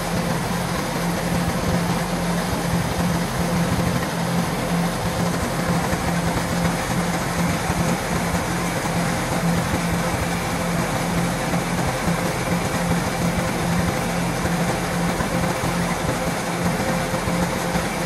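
Kubota DC-105X rice combine harvester running steadily: a constant low diesel engine drone with an even mechanical rush over it.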